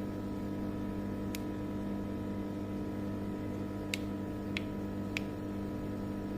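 Black chickpeas (kala chana) soaking in water giving small sharp pops as they swell: one click about a second in, then three close together near the end, over a steady hum.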